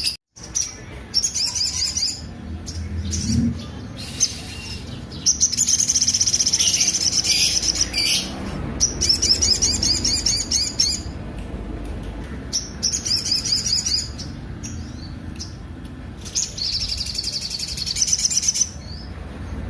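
Sogok ontong (spiderhunter) singing a harsh, rough song: about five fast, rattling trilled phrases, each lasting one to three seconds, with short pauses between them.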